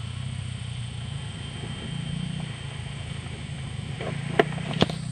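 Honda XR600 single-cylinder trail bike engine running at a distance as it is ridden, its note shifting a little up and down. Two sharp clicks near the end.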